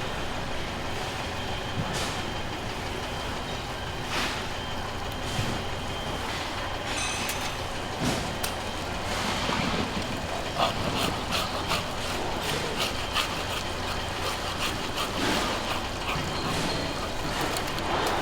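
Steady busy background noise with many short knocks and clicks scattered through it, thickest in the middle and latter part.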